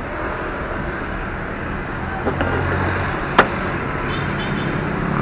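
Fire engine's diesel engine idling with a steady low hum, mixed with road traffic, and a sharp click about three and a half seconds in.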